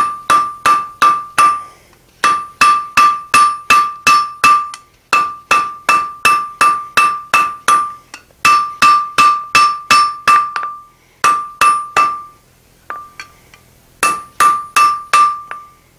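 Hand hammer striking a red-hot steel tong jaw on the anvil, shaping the jaw, in runs of blows about three a second with short pauses between runs. Each blow leaves a clear ringing tone from the anvil; a few lighter taps come near the end.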